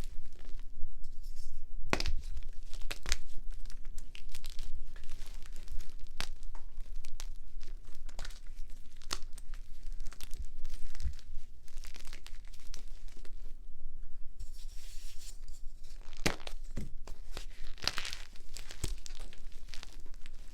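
Blocks of gym chalk (magnesium carbonate) being crushed, giving a dense, continuous run of crunches and crackles with a few louder snaps.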